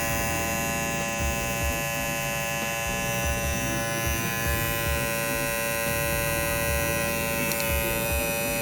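BaBylissPRO FX One Lo-Pro cordless hair clipper, a 6,800 RPM model, switched on and running at a steady, even buzz. It is pretty quiet, as a low-profile clipper is meant to be.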